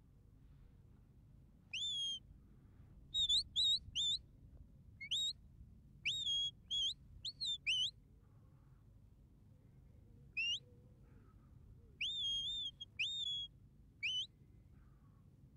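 A handler's shepherd's whistle giving sheepdog commands: a run of short, sharp, rising whistle notes, then after a pause a few longer held notes and a final rising note. These are commands steering the two working dogs around the sheep.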